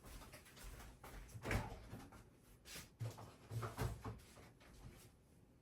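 Faint knocks and clunks of kitchen items being handled and put away, the loudest about one and a half seconds in and a few more between three and four seconds.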